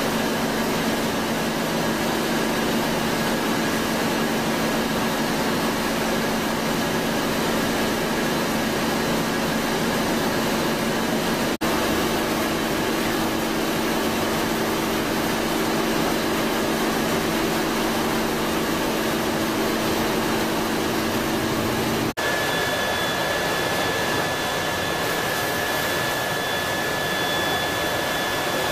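Steady rushing running noise of a Vortex D1 Mono cook, quench and chill machine, with a faint steady hum under it. The tone of the noise changes abruptly twice, about a third and two-thirds of the way in, and a thin high whine comes in for the last part.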